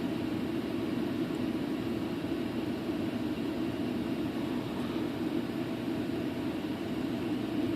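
Steady, even whooshing noise with a low hum, unchanging throughout; no tool strikes or clicks stand out.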